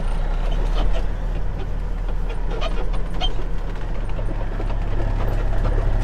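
Semi truck's diesel engine droning steadily while driving, heard from inside the cab, with scattered light rattles and clicks from the cab.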